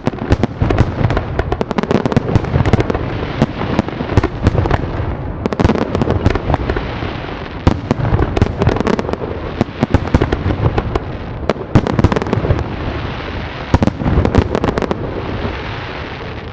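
Fireworks grand finale: a dense, continuous barrage of bangs and crackling, with fewer sharp bangs and mostly crackling near the end.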